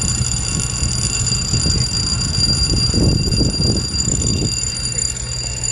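Lock warning siren sounding as the lock gate opens, a steady high-pitched tone that holds level throughout, over a low rumble.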